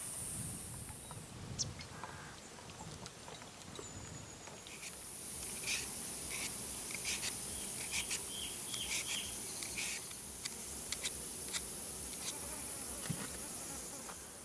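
Insects chirring in a steady high-pitched buzz that fades out about a second in and comes back around five seconds in, with scattered light clicks and a few short chirps over it.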